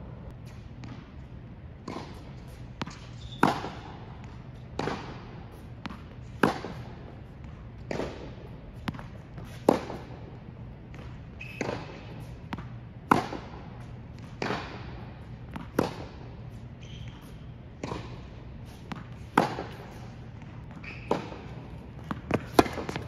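Tennis ball struck by a racket and bouncing on an indoor hard court: a run of sharp pops roughly every one and a half seconds, each with a short echo.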